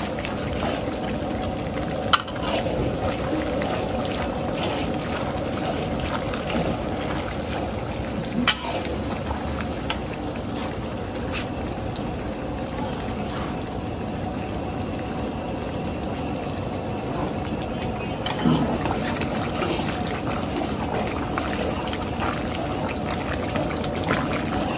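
A large karahi of kala bhuna curry simmers and is stirred with a long metal spatula, with liquid poured into it from a jug about halfway through. There are two sharp knocks, about two and eight seconds in.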